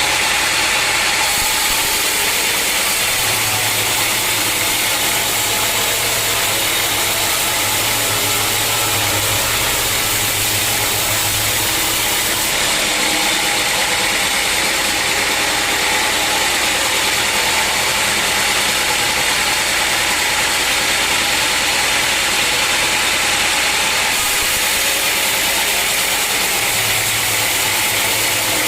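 Sawmill machinery running steadily: a continuous loud whir, with a low hum underneath that fades in and out.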